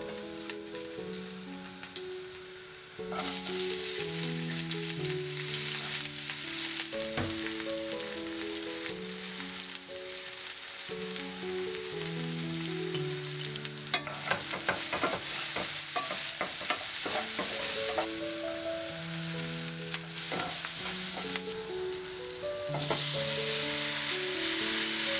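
Oil sizzling in a non-stick frying pan as garlic, then onions with turmeric, fry on a gas hob, with clicks of stirring partway through. The sizzle gets louder near the end as chopped tomatoes go into the hot pan. Soft background music plays underneath.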